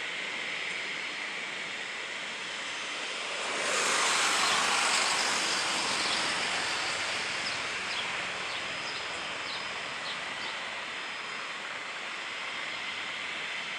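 Helibras AS350 B2 Écureuil helicopter approaching to land, its single turboshaft engine and rotors running with a steady high whine through the noise. The sound swells louder about four seconds in, then eases back to a steady level.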